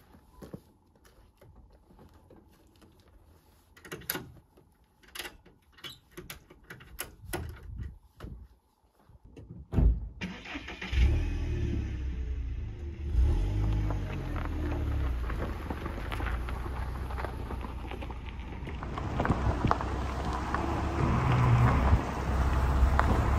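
Scattered light clicks and knocks, then a sharp thump about ten seconds in, followed by a car engine starting and running. The engine and road noise grow louder near the end as the car drives off towing a loaded car trailer.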